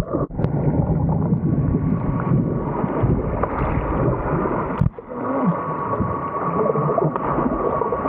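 Muffled underwater sound picked up by a camera under the sea surface: churning, gurgling water with a short break about five seconds in, then a faint steady whine.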